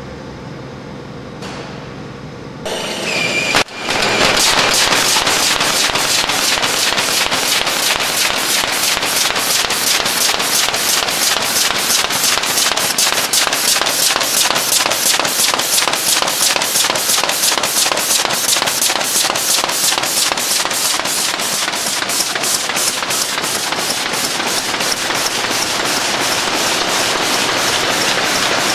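Carton folder-gluer with a nick-breaker section running at production speed, making a fast, regular clatter of repeated knocks as carrier blanks are fed through. It starts abruptly about four seconds in, after a faint steady hum.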